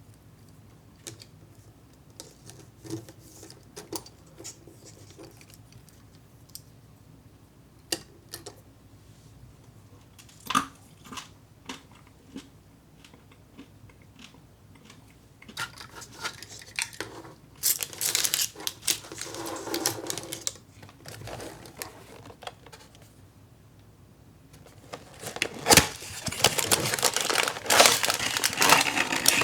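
Scattered light clicks and taps of small plastic kit pieces being handled, then two stretches of crinkling and rustling plastic packaging, the second near the end the loudest.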